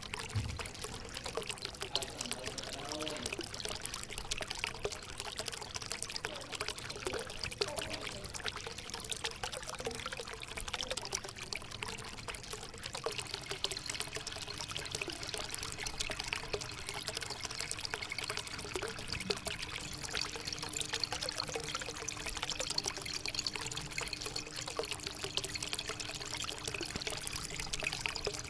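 Water pouring and trickling steadily from a homemade cement water fountain, with continuous small splashing. A faint steady hum joins about two-thirds of the way through.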